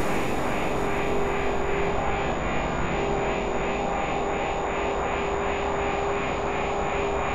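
Computer-synthesized drone from a Max/MSP sonification patch: a steady noisy wash with a held low-mid tone and a soft regular pulsing a little over twice a second, generated from the parameters of a dog photograph.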